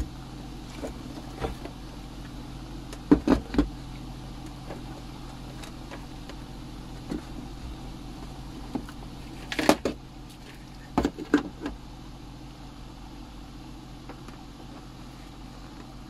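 A few sharp knocks and clicks from a multimeter and its test leads being handled and set down on the TV's metal chassis: a group of them a few seconds in and more around two-thirds of the way through. Under them runs a steady low electrical hum.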